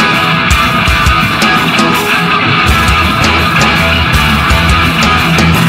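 A three-piece rock band playing live: electric guitar, electric bass and a full drum kit, with steady drum strokes under the guitar and bass.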